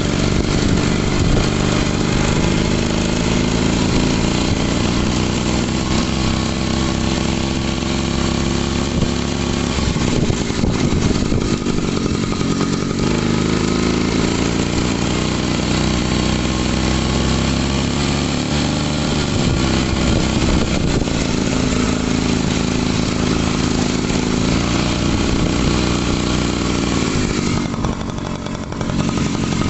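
Daelim motorcycle engine running, its revs rising and falling several times, with a brief drop in revs near the end.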